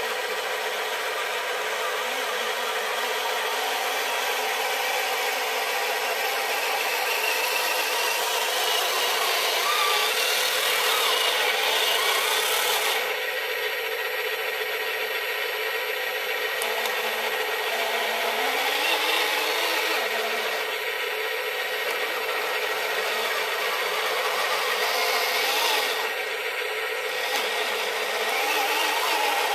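Radio-controlled model dump truck driving loaded, its electric drive motor and gearbox giving a steady grinding whine whose pitch rises and falls as it speeds up and slows.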